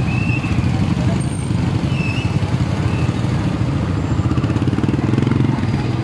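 Motor scooter and motorcycle engines running close by in busy street traffic, a steady low drone.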